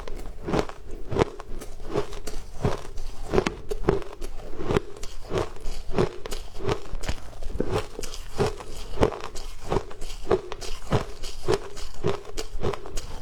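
Shaved ice being chewed, a steady run of crisp crunches at about two a second.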